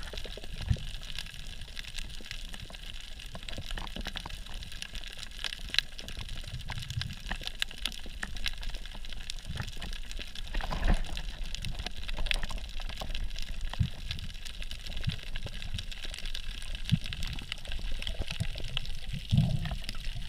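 Underwater ambience picked up by a camera below the surface: muffled water movement with a steady hiss and many scattered short clicks and crackles.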